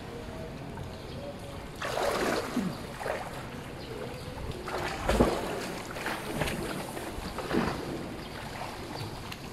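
Swimming-pool water splashing and sloshing, in a few louder bursts about two to three seconds apart, the loudest about five seconds in.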